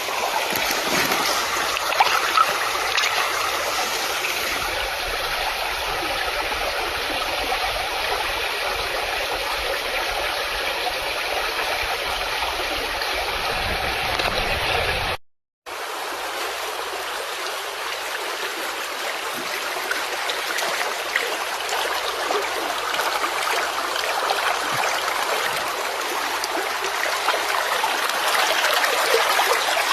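Shallow river water running steadily over stones and gravel. The sound cuts out completely for about half a second midway, then the same flow carries on.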